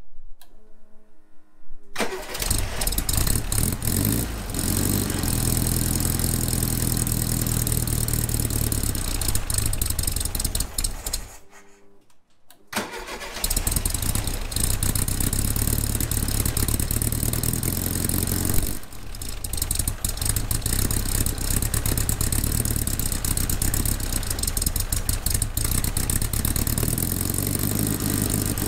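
VW Beetle's air-cooled flat-four engine starting and running steadily at idle. About halfway through it stops for roughly two seconds, then runs again. It is being run to check the oil pump cover, now held by longer bolts, for leaks.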